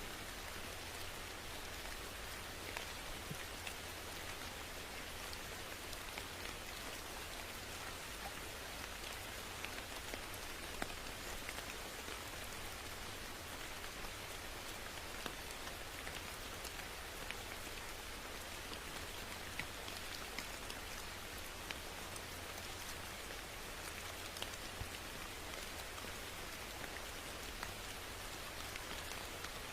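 Steady rain falling, an even hiss with many individual drops ticking on a surface and a few louder drops now and then.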